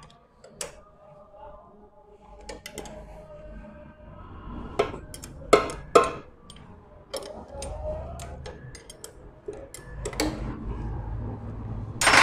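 Metal hand tools clicking and clinking on a Honda CG125's cylinder head while the 12 mm tappet-plate bolts are undone. Scattered light ticks, with a few sharper clanks about five to six seconds in and again at the very end.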